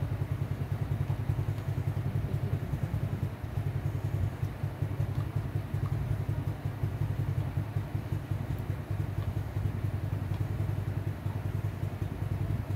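A small engine running steadily at idle, a low drone with a fast, even pulse.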